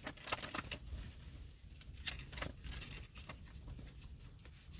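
Soft handling noises close to the microphone: a string of light clicks and rustles, busiest about half a second in and again around two seconds in.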